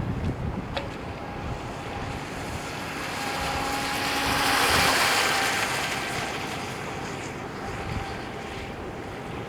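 Modded Aquacraft Rio EP electric RC boat with a 2600kv motor running on 2S, its motor whine and water noise swelling as it passes close about halfway through, then fading away. Wind buffets the microphone at the start.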